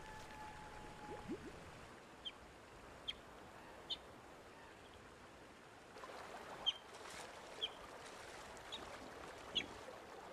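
Short, high chirping calls of a young North American river otter, roughly one a second, over the rush of river water that grows louder about six seconds in. A held music note fades out at the very start.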